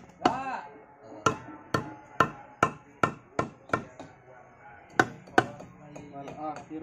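Mallet knocking on a lightweight aerated concrete (hebel) block to seat it into its bed as it is laid, about a dozen sharp knocks roughly two a second, with a short pause past the middle and a few lighter taps near the end.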